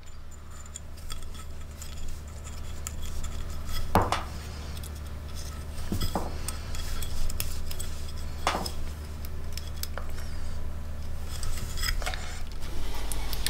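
Plastic cable ties being pushed through the holes of a metal mounting bracket and the bracket handled, giving scattered light clicks and clinks, a few sharper ones, over a steady low hum.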